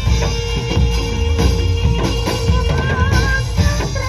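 Live band music for a dawangan dance, with a steady drum-kit beat and heavy bass. A high melody line wavering in pitch comes in near the end.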